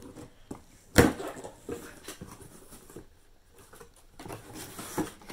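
Scissors cutting through packing tape on a cardboard shipping box, with cardboard rustling and a sharp knock about a second in.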